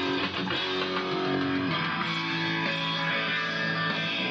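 Electric guitar strumming and holding chords, moving to a new chord every second or so.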